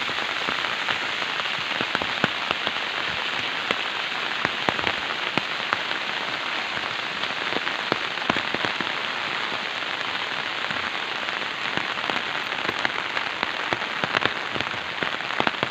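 Steady rain falling, with many sharp ticks of single drops throughout.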